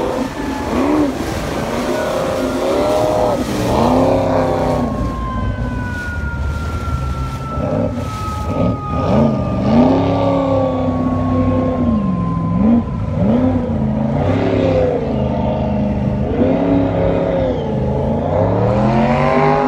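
Jet boat engine revving up and down over and over as the boat spins and throws its jet spray, its pitch rising and falling every second or two. A steady rush of wind and water runs underneath.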